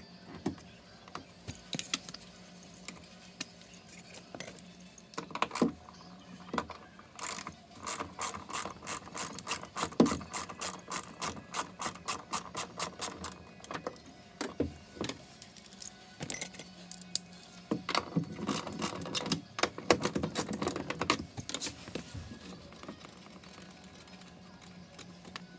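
Repeated sharp mechanical clicking and rattling in bursts, about four clicks a second at its busiest, over a faint steady low hum.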